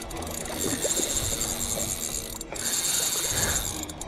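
The drag of a Shimano Saragosa 10000 spinning reel giving line with a fast, steady buzz as a hooked dolphinfish pulls. The buzz breaks off briefly about halfway through and then starts again.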